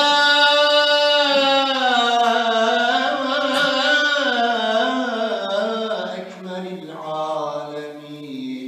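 A man's voice chanting a long, melismatic Arabic phrase of blessing on the Prophet Muhammad (a salawat) in the tesbihat after prayer. Long held notes with wavering ornaments, loudest in the first few seconds and then softer, with a new phrase starting about seven seconds in.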